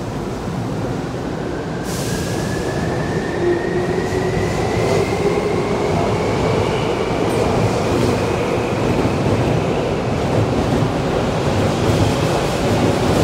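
Tokyu 8500 series electric train departing and accelerating past on the platform: wheel and rail rumble growing slowly louder, with a whine that climbs steadily in pitch over the first several seconds as it picks up speed.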